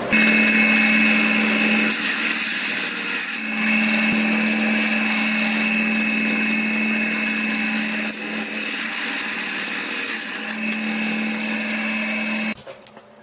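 Small electric power tool running continuously with a steady whine, its lower hum dropping out and returning twice as the load changes. It cuts off shortly before the end, leaving a few clicks.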